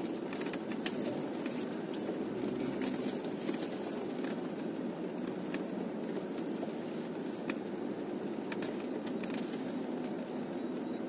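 Cabin noise of an off-road SUV driving slowly over a rough grass track: a steady low running noise with scattered light clicks and knocks.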